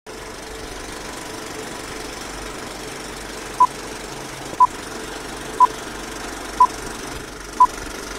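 Vintage film-countdown sound effect: a steady film-projector clatter, with a short high beep once a second from about three and a half seconds in, five beeps in all, marking the countdown numbers.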